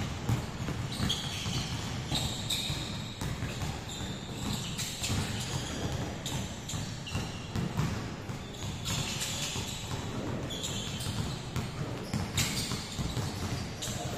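Many basketballs dribbled at once on a gym court, an irregular patter of bounces echoing in a large hall, with short high sneaker squeaks now and then.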